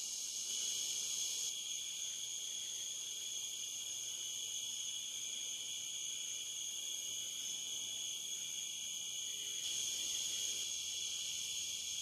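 A loud chorus of crickets trilling steadily and without a break, at a high pitch. It swells a little about a second in and again near the end.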